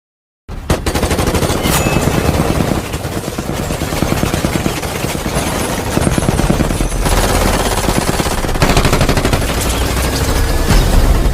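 Film destruction sound effect: a dense, rapid rattle of impacts over a deep rumble, starting abruptly about half a second in and running for about eleven seconds.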